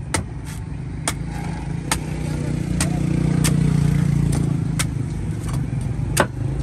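A cleaver chopping the husk of a young green coconut: sharp, separate chops, about one or two a second and irregularly spaced. Under them, a vehicle engine hums, swelling to its loudest in the middle and then fading as it passes.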